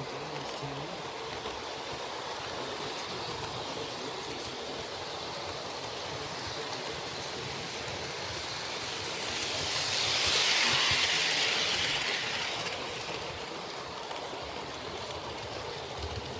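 HO-scale model train running along its ceiling-mounted track: a steady running noise that swells louder for about three seconds midway, then settles back.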